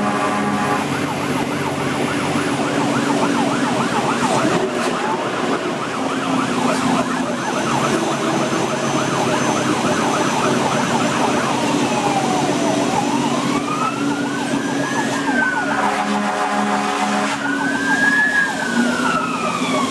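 Fire engine siren heard from inside the cab, first in a fast warbling yelp and then in a slow rising-and-falling wail, over the steady drone of the engine. A horn blast sounds right at the start and another lasts about a second and a half near the three-quarter mark.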